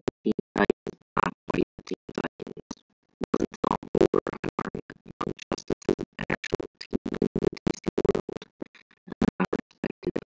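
Music cut into short, choppy bursts with scratch-like stutters and brief gaps between them.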